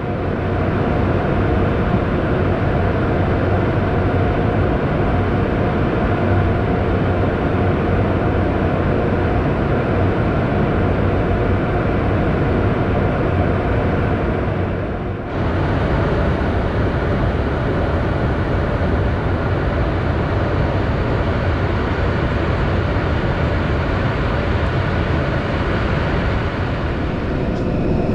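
Steady drone of engine and airflow inside a small aircraft's cockpit in flight, with a brief dip in level about halfway through.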